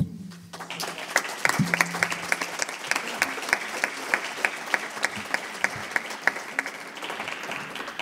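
Audience applauding, dense clapping that starts about half a second in and thins out near the end.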